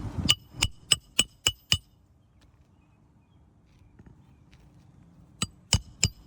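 Hammer driving roofing nails into a replacement asphalt shingle, metal ringing on metal: six quick strikes, a pause, then three more near the end.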